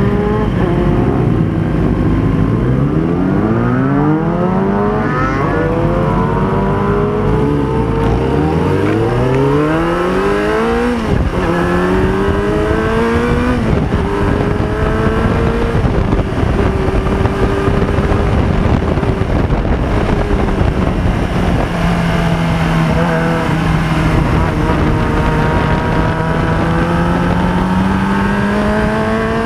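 2005 Yamaha YZF-R6's inline-four engine accelerating through the gears, its pitch climbing and dropping back with each upshift over the first ten seconds or so, then holding steadier and climbing again near the end. It runs through an aftermarket Roadsitalia silencer with the dB killer removed, with rushing noise under the engine.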